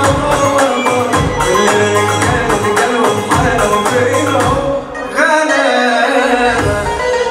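Recorded Egyptian shaabi (mahraganat) dance song with a heavy pulsing drum-and-bass beat under a busy melody. About five seconds in, the beat and bass drop out and only the melody carries on.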